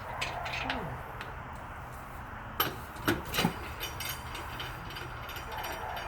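Metal tools and lug nuts clinking as a wheel's lug nuts are taken off by hand, with three sharp metallic clicks in quick succession near the middle.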